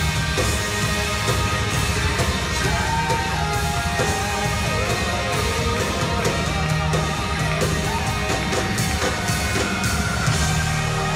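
A live band playing loud rock-style music with guitars, heard from the audience seats of a concert hall.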